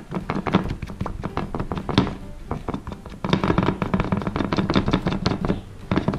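Fingers pressing and kneading neon paint into modelling dough on a ceramic plate, giving taps, knocks and clicks against the plate, densest from about three seconds in until near the end. Music plays underneath.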